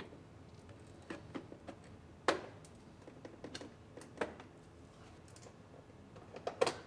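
Irregular sharp plastic clicks and snaps as retaining clips are pried off the underside of a Lexus IS 250's rocker molding with a hand tool, the loudest snap a little over two seconds in and a quick cluster near the end.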